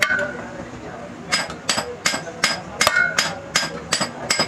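Hammer striking steel: a single blow, then after a short pause a steady run of blows about three a second, each with a brief metallic ring, typical of working the parts of a truck's universal joint cross.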